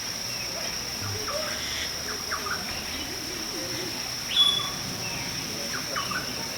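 Parrots giving short chirps and calls, with one louder whistled call a little past halfway through, over a steady high-pitched insect drone.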